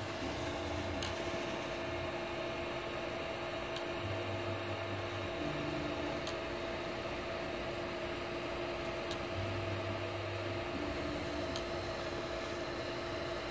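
3D printer auto bed leveling with a BLTouch probe: a steady hum from the power-supply fan, low motor tones that come and go as the head moves between probe points on quiet TMC2208 stepper drivers, and a short sharp click from the probe about every two and a half seconds, five times.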